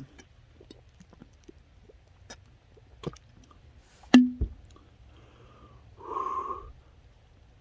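A person drinking soda in gulps: small wet mouth and swallowing clicks, a sharp knock a little past four seconds in, and a short throaty sound about six seconds in.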